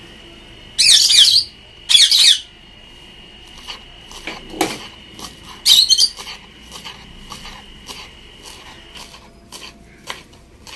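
Knife chopping fresh mint and coriander on a wooden board: a run of short, evenly spaced knocks. Three loud, shrill squawking bursts about one, two and six seconds in stand out above the chopping, and a faint steady high tone hangs in the background.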